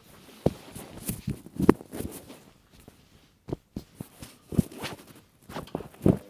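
Irregular soft knocks and taps with cloth rustling, picked up by a cameraphone microphone wrapped inside a T-shirt as it is handled.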